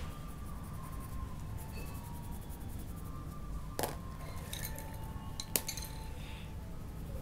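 Colour pencils clicking and clinking against each other as one pencil is put down and another picked up: two sharp clicks, near the middle and about a second and a half later, with a few lighter clinks between them, over a low steady hum.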